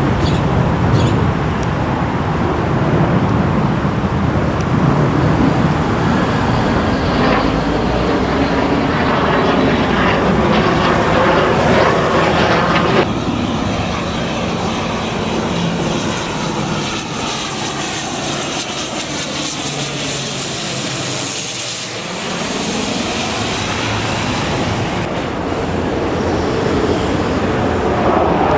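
Aircraft engine noise: the steady drone of a distant aircraft, then, after a cut about 13 s in, a Fokker 50 twin turboprop on landing approach with gear down passing low overhead, its sound sweeping and whooshing as it goes over. The level rises again near the end as an F-15SG Strike Eagle fighter jet comes into view.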